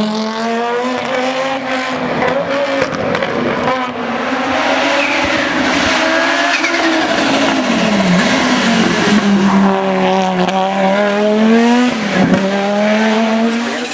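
Audi Sport Quattro S1 E2 rally car's turbocharged five-cylinder engine running hard at high revs, its pitch dipping about eight seconds in and climbing again. Tyre squeal is heard in the middle.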